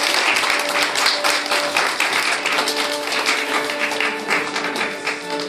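Fiddle music playing a folk-dance tune, with a dense run of fast, sharp percussive taps over it that thin out near the end.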